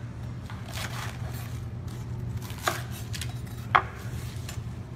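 Chef's knife slicing romaine hearts on a wooden cutting board: a handful of separate cutting strokes, the loudest about three-quarters of the way through, over a steady low hum.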